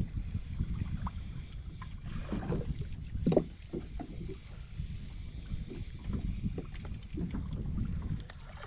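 Water lapping and splashing against a kayak's hull, with wind buffeting the microphone. A short knock about three seconds in.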